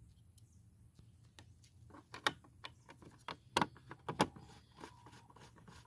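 Motorcycle's plastic side cover being handled and fitted back into place: scattered sharp clicks and knocks, the three loudest about two, three and a half, and four seconds in.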